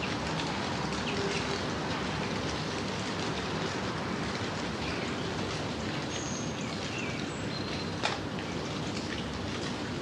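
Gentle rain falling steadily, an even hiss of drops, with one sharp tap of a drop about eight seconds in and a few faint, short, high bird chirps.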